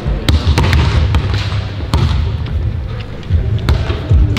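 Basketballs bouncing on a hardwood court, many irregular thuds from several balls at once.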